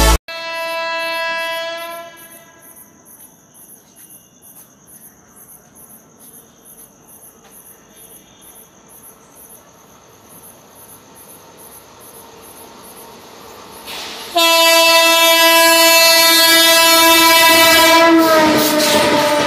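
Horn of an Indian Railways WAP-7 electric locomotive: a short, fainter blast at first, then a stretch of insects chirping in a steady rhythmic pulse, then a long loud horn blast as the train comes through at speed without stopping, its pitch dropping slightly as the locomotive passes near the end.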